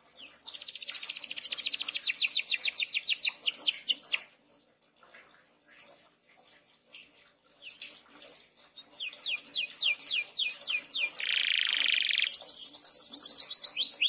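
Domestic canary singing: a phrase of rapid trilled notes for about four seconds, then after a pause of about five seconds a second trilled phrase with a harsh, buzzy stretch in the middle.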